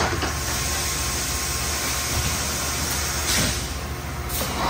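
Industrial machine running with a steady low hum under a constant hiss, and louder surges of hiss at the start, about three seconds in and near the end.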